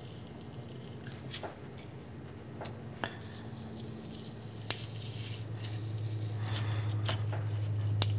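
Putty knife blade working under a thin aluminum part stuck down with painter's tape and super glue, giving scattered sharp clicks and scraping ticks as it pries the part up. A low steady hum swells in the background from about halfway through.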